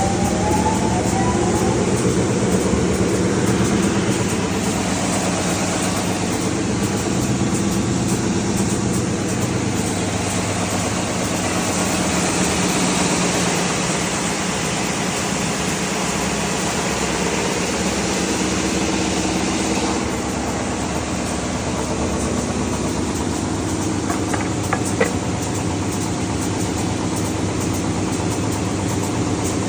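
R-RP1300 wide belt sanding machine running steadily, a dense machine noise with a constant motor hum, during a sanding test on solid wood.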